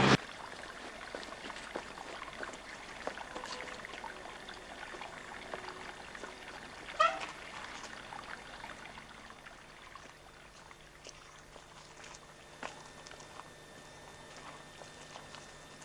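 A steady trickle of running water with scattered small clicks. One short pitched call about seven seconds in.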